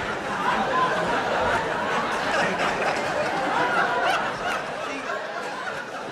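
A large audience laughing together, many voices at once, easing off a little toward the end.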